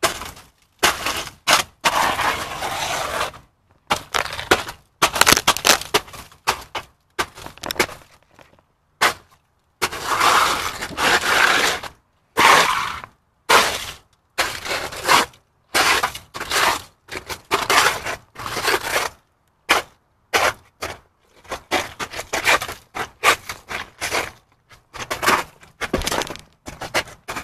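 Ice being scraped and broken off a car's glazed surfaces, in irregular short strokes of scraping and cracking with brief gaps between.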